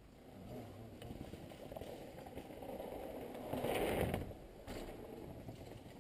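Downhill mountain bike riding past close by, its tyres running over dirt and a wooden log ramp. The noise builds and is loudest about four seconds in, then falls away.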